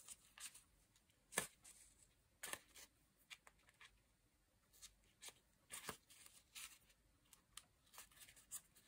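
Near silence broken by faint, scattered rustles and light ticks of paper and thread being handled as a paper tag is hand-stitched.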